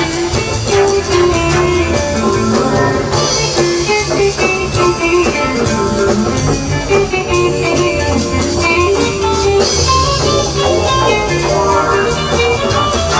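Live jazz-fusion band playing: electric guitar running quick lines over drum kit with cymbals and electric bass.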